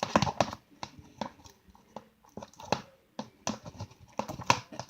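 Slime being stirred in a plastic container: irregular sticky clicks and taps as the thickening slime is worked with the mixing utensil.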